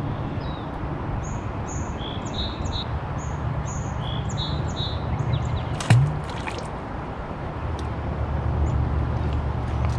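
Small birds chirping repeatedly in short high notes over a steady low rumble, with a single sharp knock about six seconds in.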